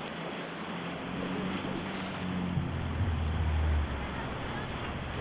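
Steady rush of whitewater on river rapids. A low rumble swells from about a second in and cuts off suddenly near four seconds.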